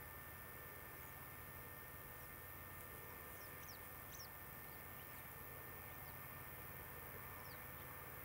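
Faint, scattered short high chirps from small birds, over a steady background hiss.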